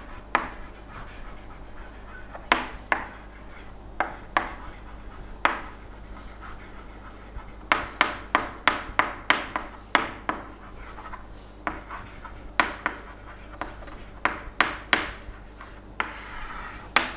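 Handwriting on a board or page: a pen or chalk tapping and scratching in short strokes, with a quick run of taps about halfway through.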